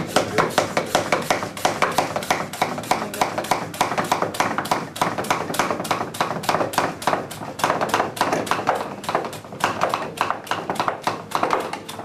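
Hand plunger pump of a Vacu Vin vacuum storage container being worked rapidly up and down, a fast run of clicking strokes about four a second, drawing the air out of the container.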